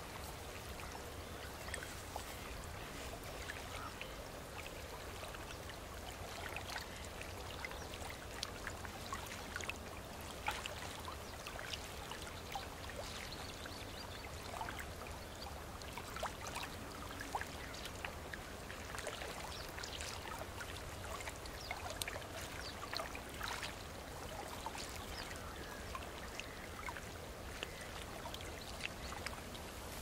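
Gentle running water: a steady trickling hiss with many small splashes and drips scattered through it.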